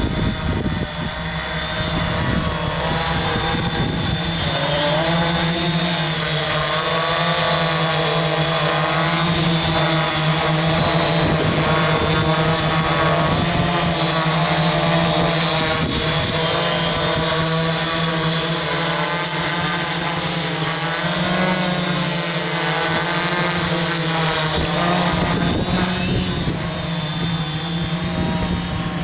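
OFM 650S V2 quadcopter's electric motors and propellers whining in flight, their pitch wavering up and down as the throttle changes, with gusty wind buffeting the microphone.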